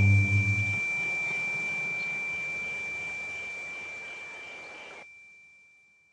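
The closing moments of a punk rock song: the last low chord stops under a second in, leaving a noisy wash that fades away and drops out near the end, over a single steady high-pitched tone.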